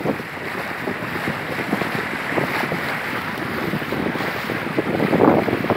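Wind buffeting the microphone over the rush and splash of sea water, with a louder gust about five seconds in.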